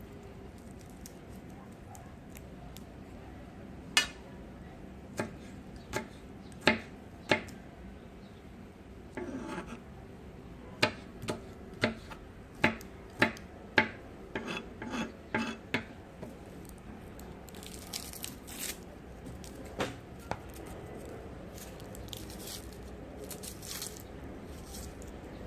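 Knife chopping on a cutting board: a few separate sharp chops, then a quicker run of chops, then softer scraping and rustling in the second half.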